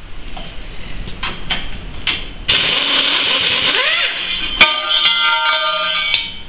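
A few light knocks, then an air tool runs loudly for about two seconds and winds down. About four and a half seconds in, a piece of metal strikes the concrete floor with a clang and rings for over a second.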